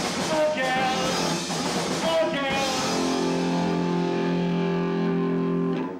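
Rock band playing a heavy rock arrangement with electric guitar and bass. About three seconds in, the band lands on a final held chord that rings steadily, then cuts off sharply near the end.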